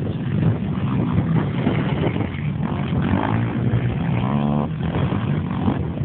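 Off-road racing engines revving around a dirt track, with one engine rising in pitch briefly about four and a half seconds in.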